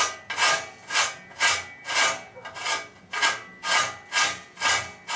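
Hand-sanding the freshly cut chamfer on a steel bicycle bottom bracket shell: even back-and-forth rubbing strokes, about two a second, smoothing the surface left rough by the facing cut.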